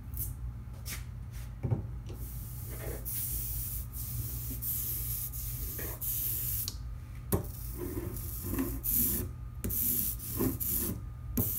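Rubber hand brayers rolling back and forth through tacky letterpress ink on an ink slab, a sticky hiss in repeated strokes with brief pauses and small knocks between them, as the split-fountain colours are blended. A steady low hum runs underneath.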